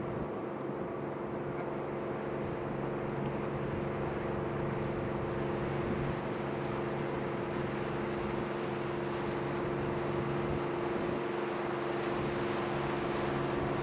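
Commercial fishing boat's diesel engine running steadily as it motors past, a low drone made of several steady tones, with a little more hiss near the end.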